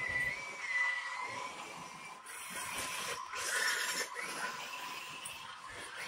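Remote-control Heng Long Type 90 tank driving and turning on a wooden parquet floor: a whine from its electric drive motors and gears that wavers in pitch with speed, with two louder spells of rushing track and gear noise in the middle.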